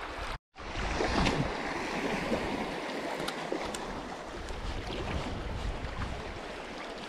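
Small choppy sea waves lapping and sloshing in shallow water, with wind buffeting the microphone. The sound drops out completely for a moment about half a second in.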